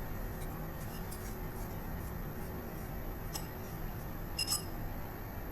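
A drinking glass clinking faintly a few times, once about three seconds in and a couple more times near the end, over a steady low room hum.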